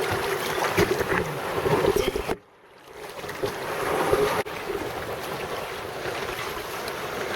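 Sea water sloshing and splashing around a swimmer, with wind on the microphone. The sound drops out briefly about two and a half seconds in, then comes back.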